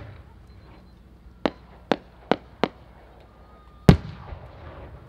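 No. 5 (about 15 cm) aerial firework shells: a sharp bang at the start, four short sharp reports in quick succession, then a louder boom about four seconds in followed by a fading crackle.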